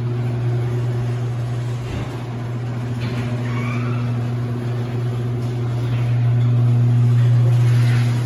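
Ceiling-mounted garage door opener running, a loud, steady electric motor hum as it drives a sectional garage door along its track.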